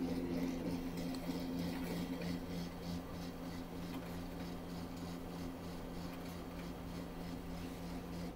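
HP LaserJet laser printer's drive motor and gear train running after a control-panel button press: a steady hum with a light, rapid ticking, cutting off near the end.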